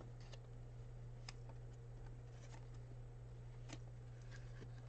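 Faint ticks and light rustling of basketball trading cards being handled and flipped through by hand, a soft tick about once a second, over a steady low hum.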